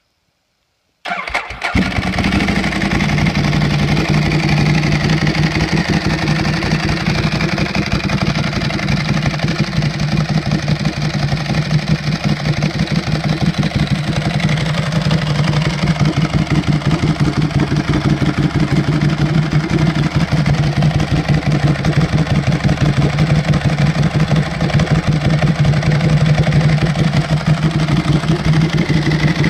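Ducati Streetfighter 1098 S's L-twin engine cranks and fires about a second in, then idles steadily through a custom hand-made exhaust with its dB killer fitted.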